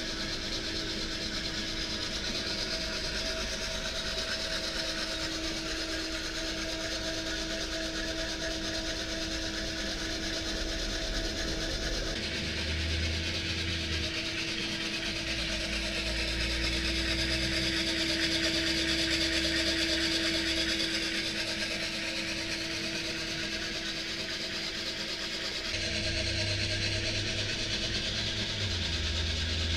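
Heat gun blowing into a bread-machine coffee roaster with the machine running: a steady rush of air over a constant hum. This is the early stage of the roast, the heat being slowly ramped up.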